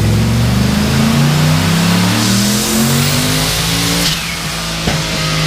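Turbocharged 4.8-litre LS V8 making a full-throttle chassis-dyno pull: the engine pitch climbs steadily, with a rush of turbo hiss near the top. About four seconds in it drops off as the throttle is lifted.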